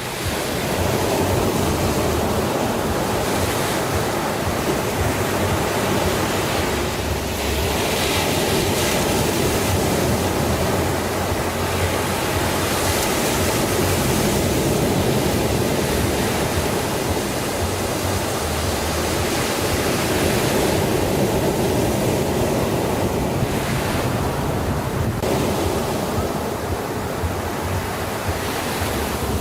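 Sea surf: a continuous wash of waves whose hiss swells and eases every several seconds as waves break and run out.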